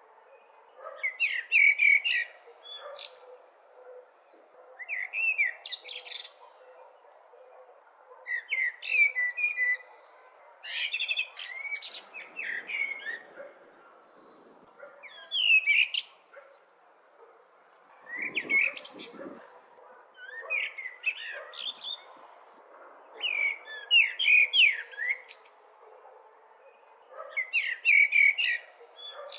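A blackbird singing: short song phrases with quiet pauses of a second or two between them. Each phrase is made of quick gliding notes, with some high squeaky notes at the end.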